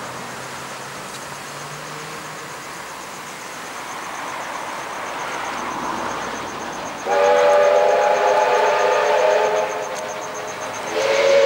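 Steam locomotive whistle blown twice over the steady running noise of the moving train: a loud chord of several held tones for about two and a half seconds starting about seven seconds in, then again near the end.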